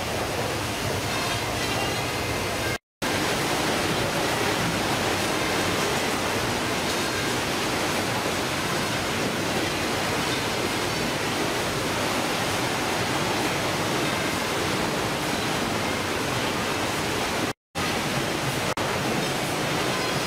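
Steady, dense noise of fish-processing machinery and conveyors on a ship's factory deck, with a rushing like running water, cut to silence twice for a moment.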